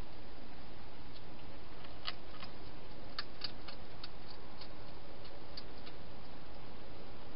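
Wild hedgehog chewing food at a bowl: a run of irregular small crunchy clicks, thickest about two to four seconds in, over a steady hiss.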